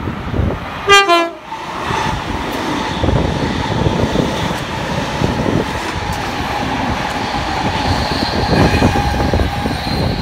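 NSW TrainLink V set electric intercity train sounding a short horn blast about a second in, then rumbling past with a steady whine over the wheel and rail noise.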